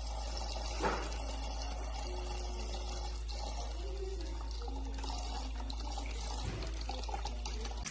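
Water running from the battery-powered electric faucet of a toy play sink, a steady flow into the small basin over a constant low hum.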